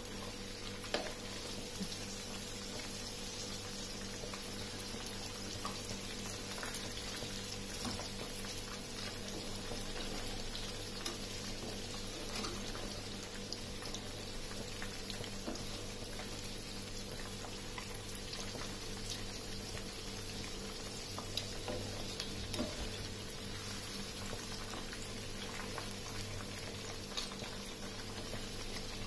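Besan-coated rohu fish pieces frying in hot oil in a pan, a steady sizzling and bubbling with occasional light clicks, as the second side fries after being turned.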